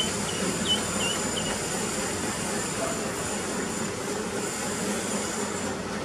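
Steady outdoor background rumble and hiss, with a few short high chirps from a small bird in the first second and a half.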